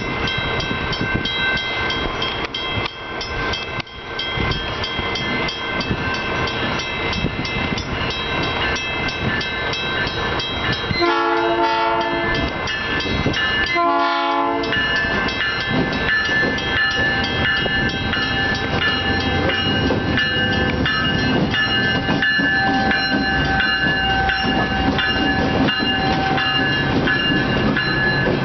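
Northwestern Pacific diesel locomotive approaching a grade crossing. The crossing bell rings steadily throughout. About halfway through the horn sounds two blasts, a longer one then a shorter one, and the locomotive's engine rumble then grows louder as it nears.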